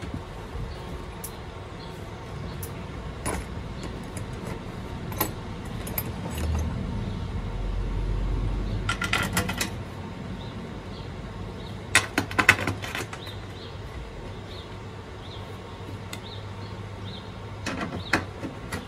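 Screws, a screwdriver and small metal parts being handled on a table saw's metal top: scattered clicks, with a cluster of clinks around nine seconds in, a louder, denser cluster about twelve seconds in, and more clinks near the end as the screwdriver goes to work on a screw beside the blade.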